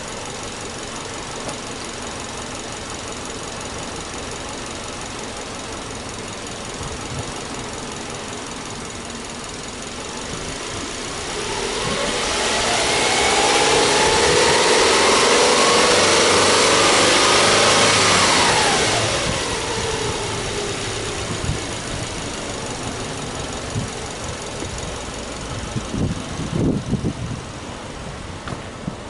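Subaru Legacy Touring Wagon 2.5i's EJ25 2.5-litre flat-four idling, then revved up about ten seconds in, held at high revs for around six seconds and let fall back to idle. A few soft thumps near the end.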